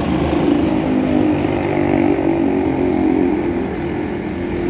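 Steady drone of nearby motor traffic, engines of passing vehicles with motorcycles among them, running on with no break.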